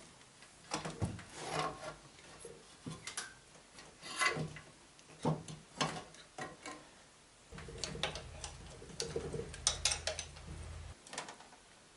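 Metal clinks, knocks and scraping from a Simson front fork and its mudguard being handled and fitted to a Babetta moped's frame, with a steadier rubbing noise lasting about three seconds past the middle.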